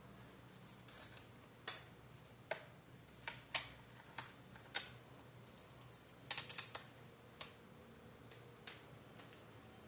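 A series of sharp, irregular clicks and taps, about a dozen, with a quick cluster of several about two-thirds of the way through.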